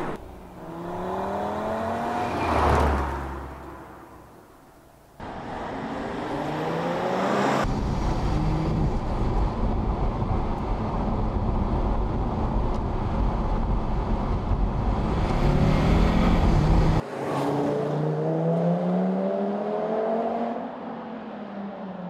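Audi TT RS's turbocharged 2.5-litre five-cylinder engine accelerating hard in several rising pulls, with abrupt cuts between them and the car passing close by about three seconds in. Through the middle stretch a steady low rumble of road and wind noise runs under the engine.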